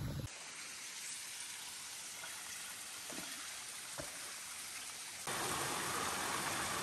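Water running over rocks in a small rocky stream: a faint steady hiss that turns abruptly louder and fuller about five seconds in, the splashing of a little cascade into a pool. There are two faint knocks in the quieter part.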